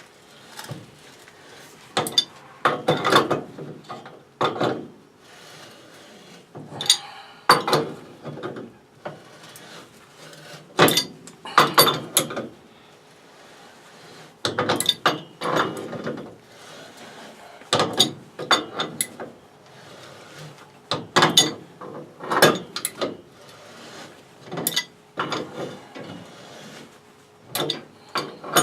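Wrench working an old threaded steel pipe joint loose: repeated short bursts of metal clicking and scraping, one to two seconds apart, as the fitting is turned off its threads.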